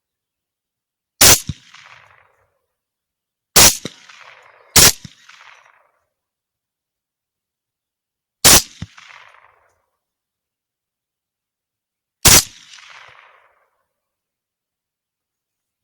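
Five shots from a suppressed AR-10 rifle in 6.5 Creedmoor, fired singly at uneven intervals (two of them about a second apart), each a sharp crack followed by a short fading echo.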